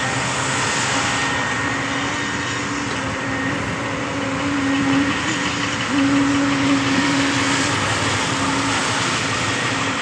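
Truck-mounted concrete boom pump running at steady revs, a continuous engine drone with a hum that grows stronger about halfway through for a few seconds, then eases.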